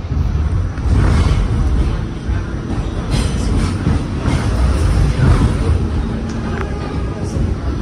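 R46 subway car pulling out of a station and picking up speed into the tunnel, heard from inside the car: a loud, deep rumble of wheels and running gear that steps up about a second in.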